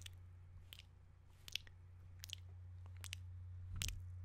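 Close-miked wet mouth sounds: lip smacks and sucking clicks, about one every three-quarters of a second, the last with a soft low thump of breath, over a steady low hum.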